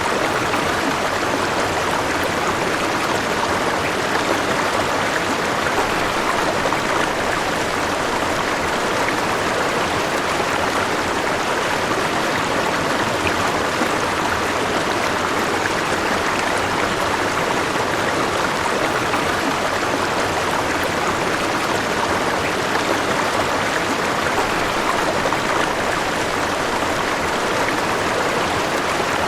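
River water flowing over rocks: a steady, even rushing and babbling that does not change.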